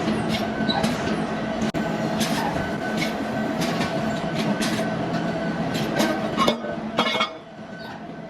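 A machine runs with a steady hum of several fixed tones, under frequent sharp metallic clicks and clinks. It drops noticeably quieter about seven seconds in.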